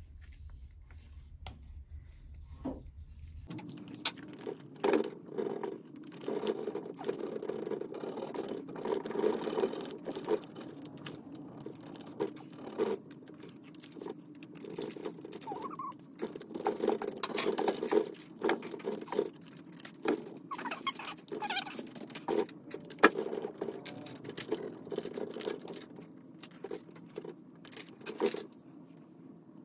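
Fingers rubbing a rub-on furniture transfer's plastic backing sheet down onto a textured painted cabinet door and peeling it back: a run of scratchy crinkles and clicks. From about three and a half seconds in, a Glowforge laser cutter runs steadily behind it.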